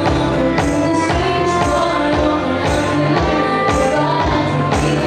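Live pop-folk band playing through a PA: a woman singing over acoustic guitar, electric bass and saxophone, with a steady drum beat.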